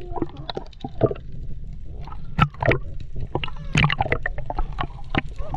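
Underwater water noise picked up by a submerged camera: irregular gurgling and popping with sharp clicks over a steady low rumble.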